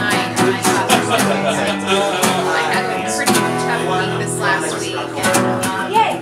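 Two acoustic guitars played together, strumming chords in a steady rhythm.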